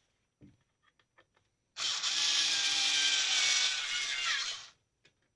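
A few light clicks, then a small electric power tool runs for about three seconds, its pitch dropping as it winds down and stops.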